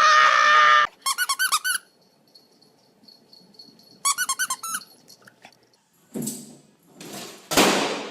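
Rubber squeaky dog toy being squeezed: a long squeak that stops about a second in, then a quick run of about eight short squeaks, and after a pause another quick run. Two louder noisy bursts follow near the end.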